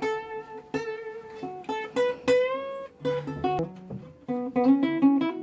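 Acoustic guitar being picked: single plucked notes and a few chords, each ringing out, with a quicker run of short notes in the second half.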